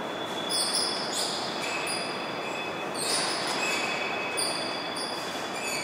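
Steady rushing of wind and rain inside the radar dome, with high squeaks and whistles that come and go several times.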